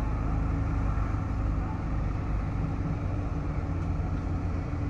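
Heavy-equipment diesel engine running steadily, its low hum holding an even pitch.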